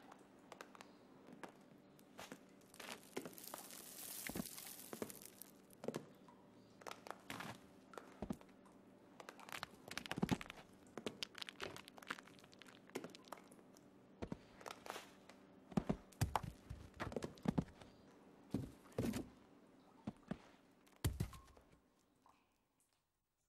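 Irregular small knocks, crackles and crinkling over a faint steady hum, with a brief hiss about four seconds in; the knocks come thicker in the second half and all of it stops shortly before the end.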